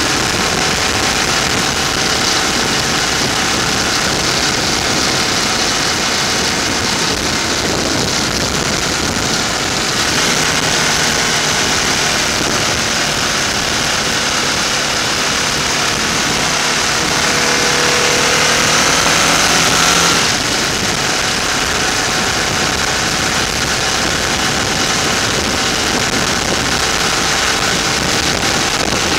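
Motorcycle engine running under way, with wind rushing over the microphone. About two-thirds of the way through, the engine note climbs for a few seconds, then drops away suddenly.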